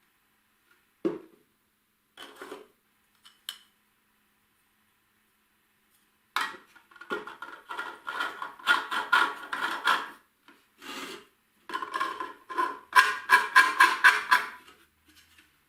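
A single knock about a second in, then a long run of quick, uneven scraping strokes worked by hand on a workpiece, loudest near the end.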